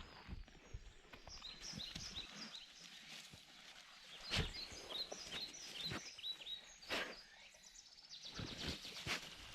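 A songbird calling outdoors in a rapid series of short, high, downward-sliding chirps, with a few sharp knocks in between.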